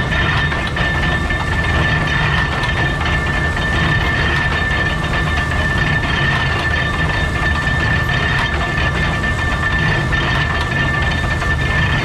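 Oliver Bale Master stationary baler running while straw is fed in: a steady mechanical clatter with a steady high whine over it.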